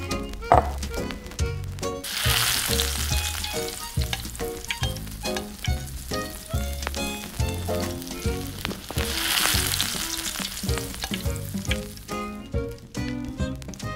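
Beef patty sizzling in hot oil in a miniature steel frying pan. The sizzle starts about two seconds in and swells again later, over background music with a steady beat.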